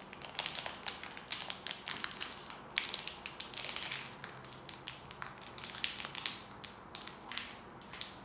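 A small shiny packet of glitter crinkling and crackling in the fingers as it is worked at to open it, in quick irregular crackles.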